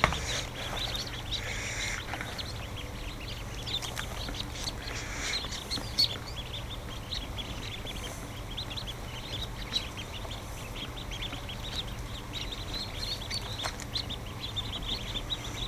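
Newly hatched ducklings peeping in a crowd, a dense continuous chatter of short high cheeps, over a steady low hum, with a couple of light knocks.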